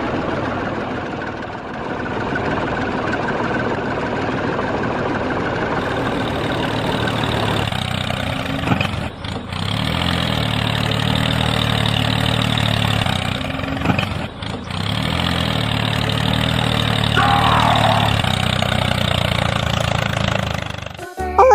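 Engine running steadily with a low hum, briefly cutting out and picking back up about nine and fourteen seconds in; a short high squeak sounds near the end.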